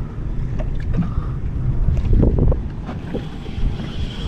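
Wind buffeting the microphone, with water slapping against the hull of a small open skiff and a few light knocks.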